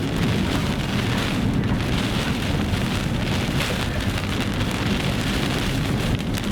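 Heavy rain pelting a vehicle's roof and windows, heard from inside the cabin as a steady, dense patter with many small hits.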